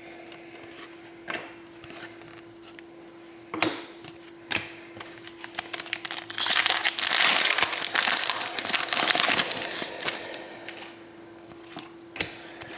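Hockey card pack wrappers being torn open and crinkled. A few sharp clicks come first, then a dense run of crinkling in the middle few seconds, over a faint steady hum.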